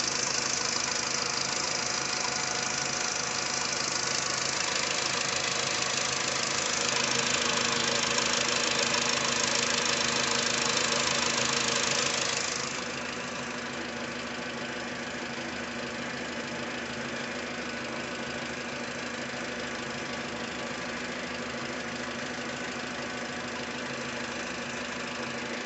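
Car engine idling steadily, with a hiss over it that drops down sharply about halfway through. The engine has been misfiring on cylinder 4 and now idles more stably.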